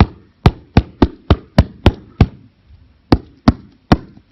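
A 25 mm wood-pattern foam jigsaw mat being struck, giving a quick, uneven run of about eleven sharp knocks. There is a short pause a little past halfway.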